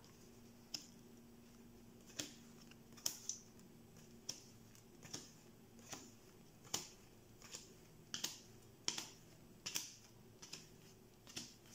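Neapolitan playing cards dealt one at a time from the deck and laid down on a cloth-covered table, each card making a light snap. About twenty snaps, sparse at first, then roughly two a second.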